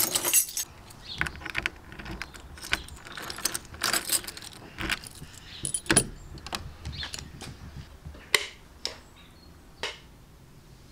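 A bunch of keys jangling as it is picked up and handled, then sharp metallic clicks of a key in a door lock and the door handle, with a few single clicks near the end.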